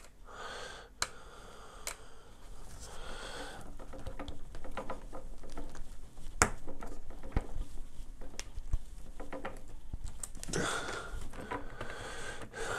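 Clicks, taps and light scraping from handling the metal and plastic parts of an aluminium headset stand while its small screws are fitted, with a sniff about ten seconds in.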